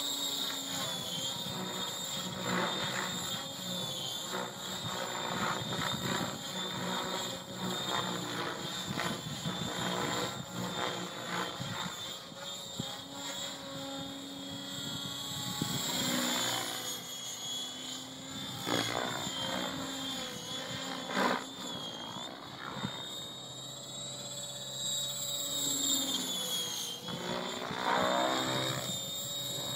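Align T-Rex 700 electric RC helicopter in aerobatic flight: a steady high motor whine over buzzing, whooshing rotor-blade noise that swells and sweeps as it manoeuvres. The VBar governor holds the rotor head near 1850 rpm, so the whine only wavers slightly.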